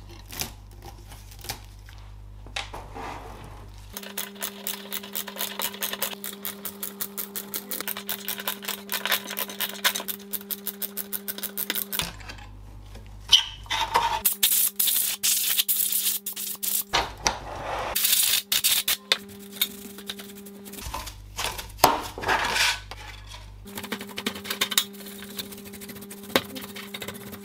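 A brush and gloved fingers working dust out of a desktop power supply's circuit board, heatsinks and braided cable sleeving, in several short cuts. A run of quick, even brush strokes is followed by bursts of brisk, scratchy brushing.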